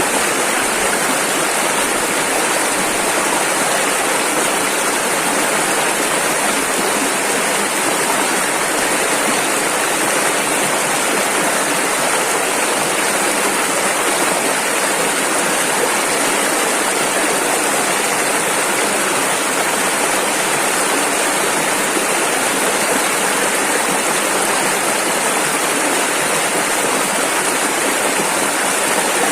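Rushing river water, a loud, steady rush of fast-flowing rapids with no change in level.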